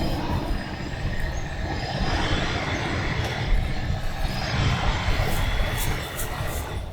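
Construction machinery running: a steady low rumble, with a few faint clicks near the end.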